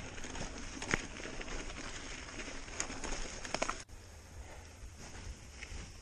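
Mountain bike rolling over a rocky dirt track, picked up by a camera mounted on the rider or bike: tyre crunch on loose stones with a rattle of sharp clicks and knocks. Just under four seconds in, it cuts off suddenly to a quieter outdoor background with a low rumble as a cyclist rides past.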